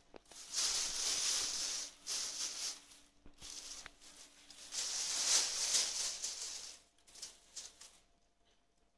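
Thin plastic bag crinkling in irregular bursts as a cat pushes its head into it and climbs into and out of it. The crinkling stops about a second before the end.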